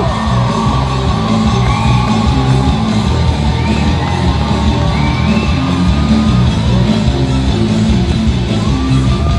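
Loud show music with a steady driving beat, with a few short shouts or whoops over it.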